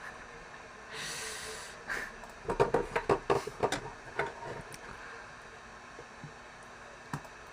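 A person breathing out softly about a second in, then a run of short, quiet breathy puffs.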